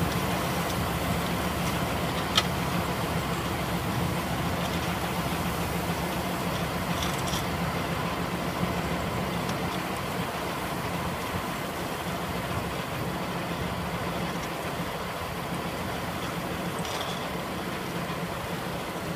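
Tractor engine running steadily under load while a tractor-mounted SP61 road-shoulder milling machine grinds into the verge soil. A single sharp click comes about two seconds in, and the sound slowly grows fainter as the machine moves away.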